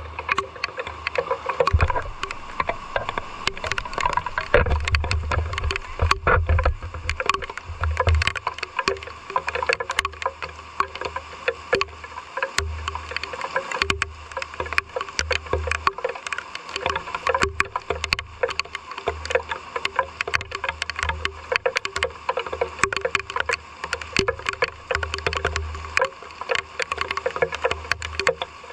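Rain falling, with many close drops tapping and dripping irregularly on hard surfaces, and low rumbling that comes and goes in bursts.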